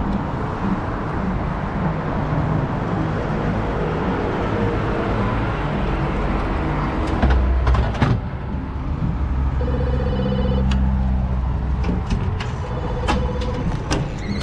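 Street background and camera handling while walking in through a building's entrance, then a low muffled thudding about halfway through. Two electronic buzzes of about a second each, like a door entry system, sound near the end, with sharp door clicks.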